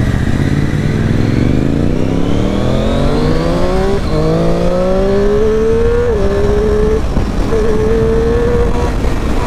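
Triumph Street Triple RS's three-cylinder engine accelerating hard, its pitch climbing steadily, with short breaks about four and six seconds in as it shifts up, then holding at a steady high pitch, over wind rushing at the microphone.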